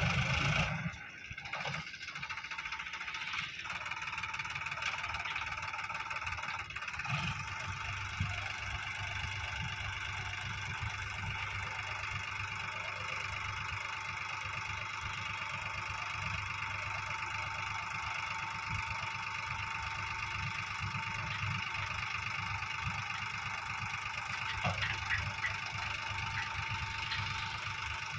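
Sonalika DI 750 RX tractor's diesel engine running steadily while it drives the hydraulic tipper lifting a loaded soil trolley.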